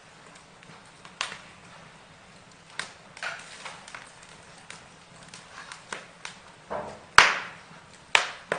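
Burning wood crackling, with irregular sharp pops and snaps over a low hiss. The two loudest pops come about seven and eight seconds in.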